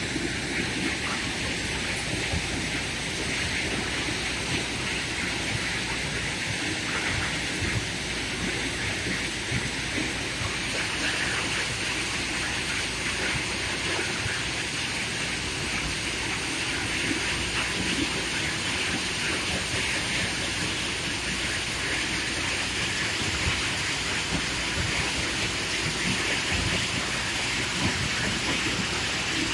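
Mahindra backhoe loader's diesel engine running under load as the machine pushes and levels soil with its front bucket, heard as a steady, noisy rumble.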